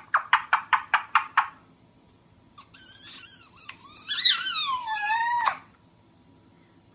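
Indian ringneck parakeet and a person calling to each other through a cardboard tube. First comes a quick run of about ten clicking pulses, then after a short pause about three seconds of high, squeaky chatter with falling whistles.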